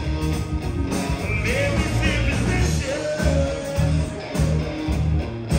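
Live rock band playing loudly: electric guitars, bass and drums keeping a steady beat, with a lead line that slides up into a note and then holds a long note over the band.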